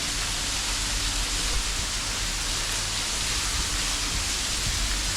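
Water rushing steadily down a waterfall's cascades.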